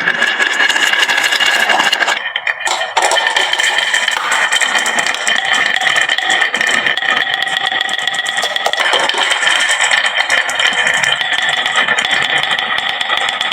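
Many marbles clattering continuously down a wooden marble-run slope, a dense stream of small clicks under a steady ringing hum, with a short lull about two seconds in.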